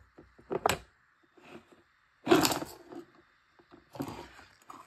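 Handling noise from an opened hard drive and tools on a wooden table: a few clunks and metallic clatters, the loudest a little over two seconds in.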